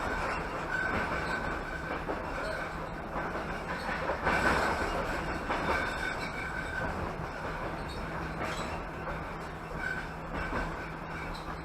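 Passenger train carriage rolling along the track, with the wheels clattering over the rails and giving short, high squeals now and then.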